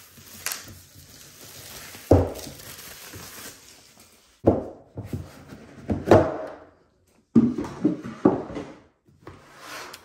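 Unboxing handling: plastic shrink-wrap tearing and rustling off a retail box, then a cardboard box and lid being bumped, slid and lifted, with a series of separate dull knocks and scrapes every second or two.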